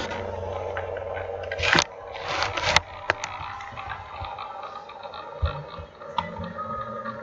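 Room background: a steady low hum, with scattered short clicks and two brief rustling noises in the first three seconds.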